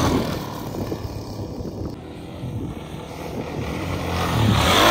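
Dirt bike engine running, with a steady low drone, growing louder near the end.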